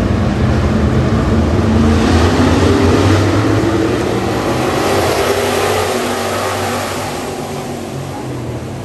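A pack of dirt-track race cars racing past under throttle, many engines sounding at once. It swells to its loudest a couple of seconds in, then fades toward the end as the field pulls away.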